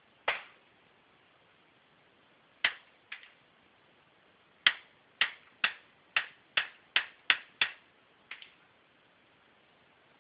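Gunshots at a shooting range: a few separate shots, then a rapid string of eight shots at about two to three a second, then one more, fainter.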